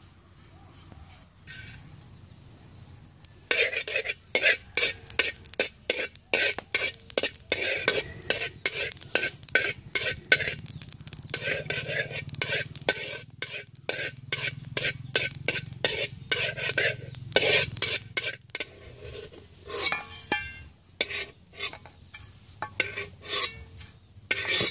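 A metal spoon scraping and stirring anise seeds around a dry metal wok to toast them quickly, in rapid, uneven strokes that begin a few seconds in.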